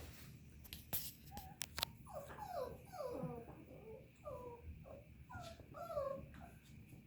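Goldendoodle puppies whimpering: a run of short, high whines that fall in pitch, some overlapping, starting about two seconds in, with a few sharp clicks just before.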